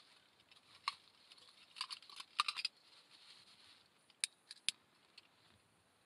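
Light clicks and clinks of small camp cooking gear being handled: a few knocks about a second in, a quick cluster around two seconds, then two sharp clicks near the four-second mark.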